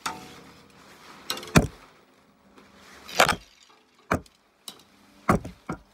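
Tent pole knocking and clacking as it is handled and fed into place on a tent's vestibule, about six sharp strikes spaced roughly a second apart, the loudest about a second and a half and three seconds in.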